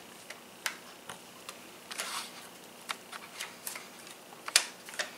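Faint, irregular small clicks from winding up a wind-up flying butterfly toy, its wire front wings turned by hand to twist the rubber band inside. The sharpest click comes about four and a half seconds in.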